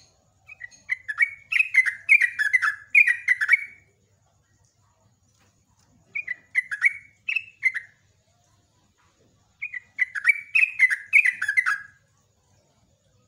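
Yellow-vented bulbul (trucuk) singing in three bursts of quick notes, each note falling in pitch, with pauses of about two seconds between the bursts.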